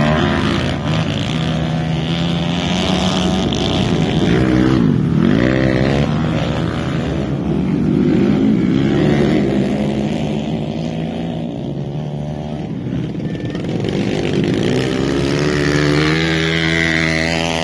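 Several dirt bike engines on a motocross track, revving up and down as the bikes ride past close by, their pitches overlapping. Engine pitch swoops about 5 s in and again near the end as bikes pass.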